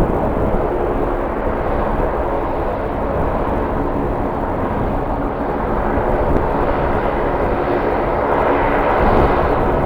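Jet airliner engines running steadily, with a faint whine over a broad rush of noise that swells near the end. Gusty wind rumbles on the microphone.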